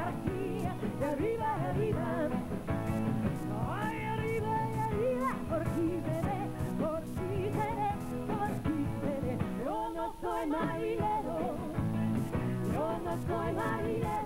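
Live band playing an up-tempo rock-pop song with a sung vocal over drums, bass and keyboards. About ten seconds in, the bass and drums drop out briefly before coming back in.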